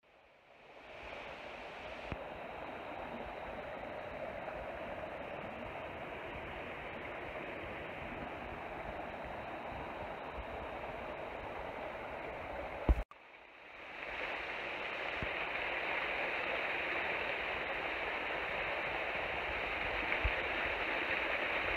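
Waterfall water rushing in a steady, even hiss. About two-thirds of the way through there is one sharp click and a brief drop-out, after which the rushing returns a little louder.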